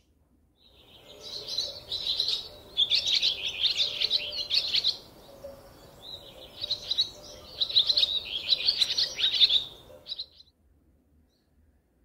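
Small birds chirping and twittering in two long bursts of rapid, high chirps with a short lull between them. The chirping stops about ten seconds in.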